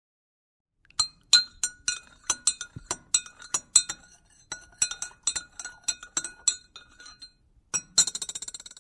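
Glass clinking: sharp, ringing clinks at an uneven pace of about three a second, then after a short pause a quick rattling run of clinks near the end.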